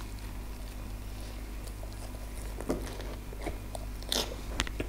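Close-up chewing of a big mouthful of lettuce-wrapped braised pork belly (Korean bossam), with scattered soft crunches and wet clicks from the lettuce and garlic, the strongest about four seconds in. A low steady hum sits underneath.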